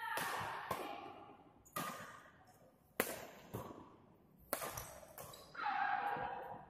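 Badminton rally: several sharp racket-on-shuttlecock hits, roughly one a second, each ringing briefly in the hall, with a player's voice calling out near the end.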